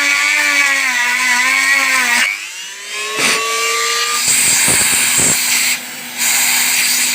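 Electric drill boring a hole into the plastic housing of a wiper motor, its motor whine wavering under load. It stops just after two seconds, spins back up with a rising whine and runs on steadily, with a vacuum cleaner running alongside to catch the shavings.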